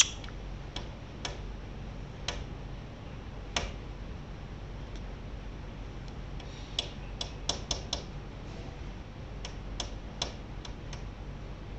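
Sharp, irregular clicks and taps from a perched chattering lory working with its beak, a quick run of them about seven to eight seconds in.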